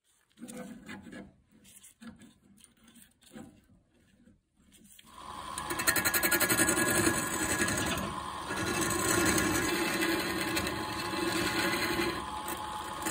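Wood lathe turning a wooden blank: soft, intermittent rubbing against the spinning wood at first, then from about five seconds in a loud, steady cutting noise with a hum as a hand-held turning tool bites into the end face and throws off shavings.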